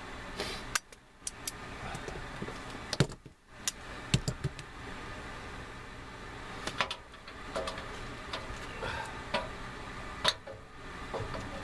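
Scattered clicks and knocks from handling a capacitor and meter test leads while the new run capacitor is set into its mounting in an air handler, over a steady low hum.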